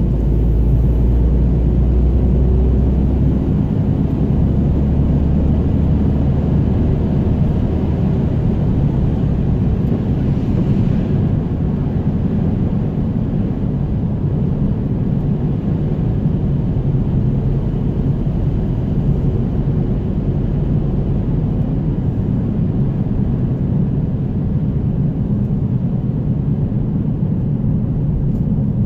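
Steady rumble of a car on the move, with engine and tyre-on-asphalt noise heard from inside the cabin. A deep hum underneath eases a few seconds in.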